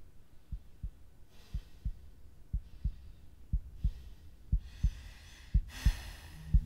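Heartbeat sound effect: low thumps in pairs about once a second, growing louder, with rushing breath-like swells between them. A low steady drone comes in just at the end.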